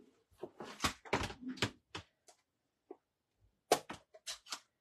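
Small knocks and clicks of craft supplies being handled and set down on a cutting mat, in two clusters: a run of taps from about half a second in to about two seconds, then a few more near the end.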